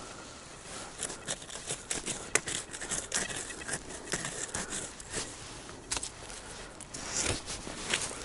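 Irregular rustling, crackling and scraping, like leaf litter and soil being disturbed on a forest floor, with a handful of sharper snaps.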